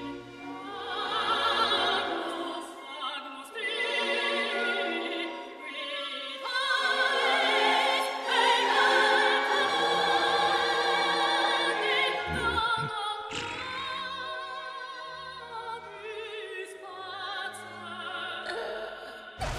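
Opera-style singing with a wide vibrato, over music.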